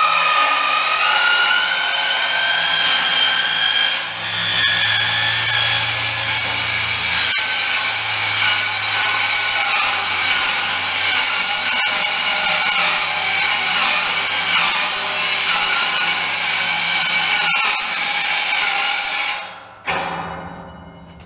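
Milwaukee 2782-20 dry-cut metal-cutting circular saw running loud as it cuts through a sheet-steel panel, its whine wavering in pitch with the load. About 19 seconds in the saw is switched off and winds down.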